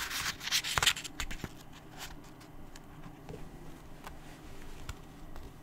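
Faint rustling in the first second, then a few scattered light clicks and ticks over quiet room tone.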